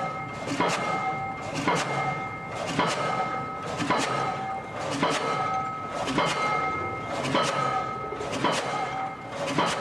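Pile-driving hammer striking a pile about once a second in a steady rhythm, each blow followed by a ringing metallic tone.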